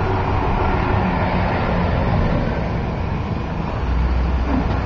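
Street traffic noise with a vehicle engine humming steadily. A heavier low rumble swells about four seconds in, as a vehicle passes close by.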